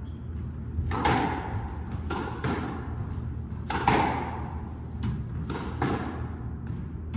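Squash rally: sharp hits of racket on ball and ball against the court walls, often in quick pairs, every second or two, echoing in the enclosed court.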